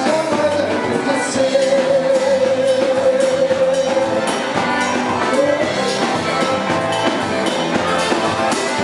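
Music: a Brazilian Portuguese pop song with a sung melody over a steady beat.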